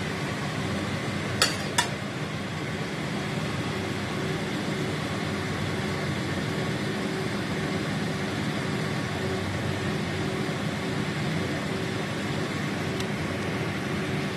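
Steady whirring hum of a kitchen fan, with two sharp clicks about a second and a half in.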